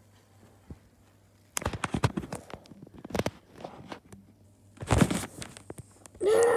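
Handling noise of a phone being moved and rubbed against clothing and carpet: a run of knocks and rustles about a second and a half in, and another burst near five seconds. Near the end a child's voice starts a held, wavering sound close to the microphone.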